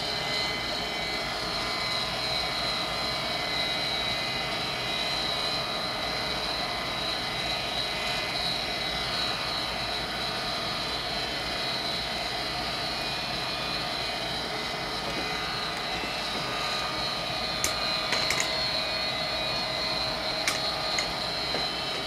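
Vintage Armstrong gas furnace running steadily, its draft-inducer motor and burner giving a constant whirring noise with a high whine on top. A few light clicks come near the end.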